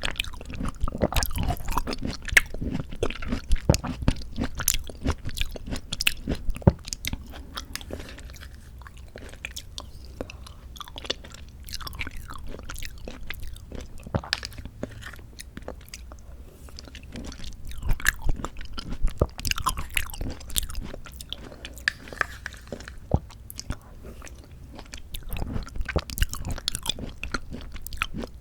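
Close-miked wet chewing of mandarin orange segments from a tangerine fruit cup, full of sharp mouth clicks and squelches, coming in spells with short quieter pauses between.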